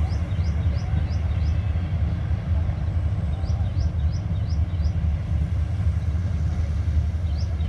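Large diesel engine of a combine harvester running steadily with a deep, even rumble. Two runs of quick, high, rising chirps sound over it, the first at the start and the second about halfway through.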